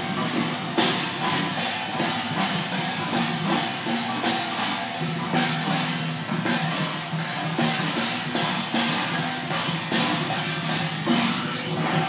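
Drums, gongs and cymbals of a Chinese Taoist procession played together in a dense, unbroken rhythm.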